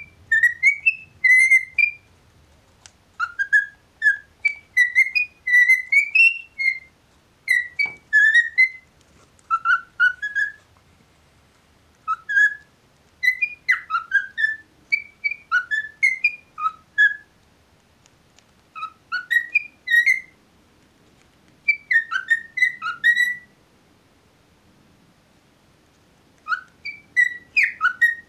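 Male grey cockatiel singing: phrases of short, bending whistled notes, each phrase a second or two long, repeated with short pauses between them and a longer pause near the end.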